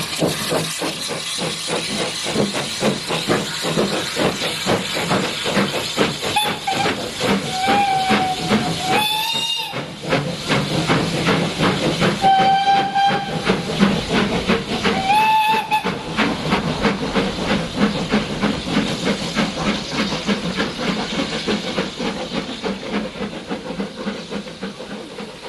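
Beattie 2-4-0 well tank steam locomotive 30587 pulling away up a steep gradient, its chimney exhaust beating rapidly and evenly with a steady hiss of steam. Four whistle blasts sound between about six and sixteen seconds in, one of them long and rising at its end. The exhaust fades near the end as the engine draws away.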